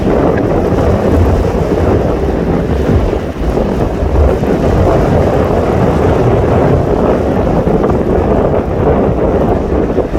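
Wind buffeting the microphone in a loud, steady low rumble, over sea waves washing against the shore.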